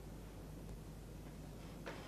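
Low, steady hum of background room tone. Near the end comes a single sharp tap: a footstep on a staircase, the first of a walking rhythm.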